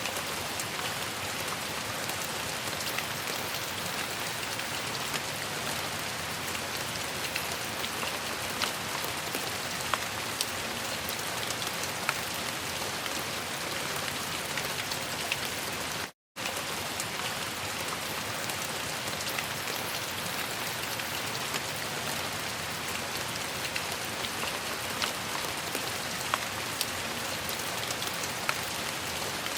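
Steady rain falling, an even hiss with individual drops ticking sharply here and there. About halfway through the sound cuts out completely for a split second, then resumes.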